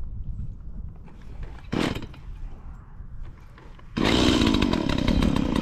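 A chainsaw, likely cutting a fence post, starts running loudly about four seconds in; before that there is only a low rumble and one short burst of noise about two seconds in.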